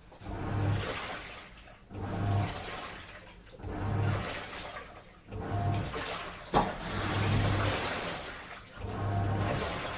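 Washing machine on a strong wash cycle: the drum turns and water and laundry slosh in regular surges about every second and a half to two seconds, each with a low motor hum. There is a single sharp click about six and a half seconds in.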